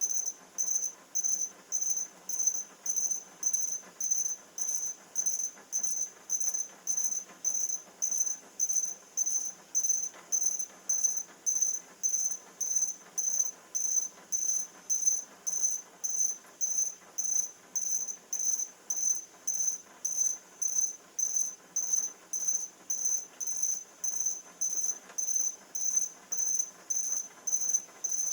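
E-puck swarm robots' speakers giving short, high-pitched electronic beeps in an even rhythm, a little under two a second. Each beep marks one cycle of the swarm algorithm: the robots count the beeps they hear to judge how many neighbours are close and turn back when the count falls, keeping the swarm together.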